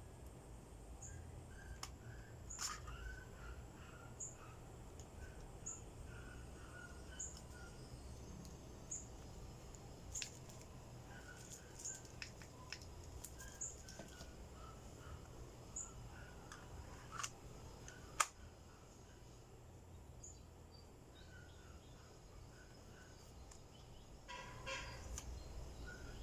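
Faint bird chirps: a short high call repeating about every second or so, with scattered lower calls, a few clicks and a steady low hum.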